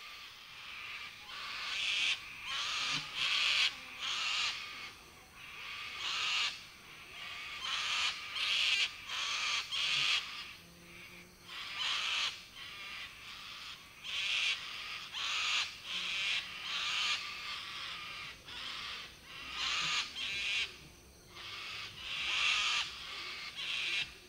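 Harsh, screeching bird calls, repeated in pairs and short runs of loud squawks with brief gaps between them.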